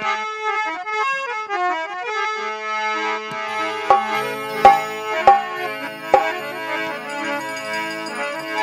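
Harmonium playing a melodic instrumental interlude in Rajasthani devotional folk music, with four sharp percussion strokes about halfway through.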